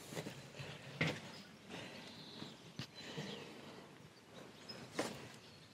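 Faint outdoor background noise with a few soft knocks, the clearest about a second in and another near the end.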